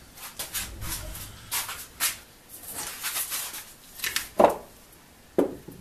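Handling noises of hand tools and a steel saw plate on a wooden workbench: a string of short scrapes and clicks, then two sharp knocks a second apart near the end as things are set down.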